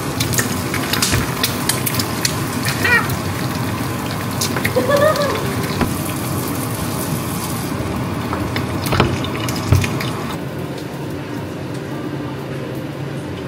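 Eggs frying in oil in a pan, a steady sizzle, with taps and scrapes of a wooden spatula against the pan. The sizzle thins out about ten seconds in as the pan is lifted off the hob.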